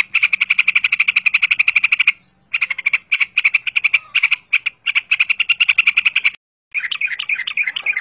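Yellow-vented bulbul singing in fast runs of short, evenly repeated notes, about ten a second, broken by short pauses. Near the end the notes turn into a quicker, more varied warbling phrase. This is the rapid-fire 'ropel' delivery that keepers train for.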